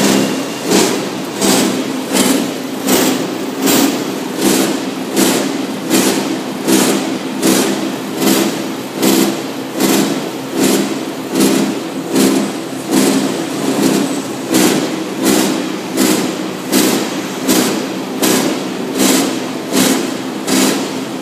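Small copper wire granulator running while it chops insulated cable: a steady machine hum with a regular clatter about twice a second.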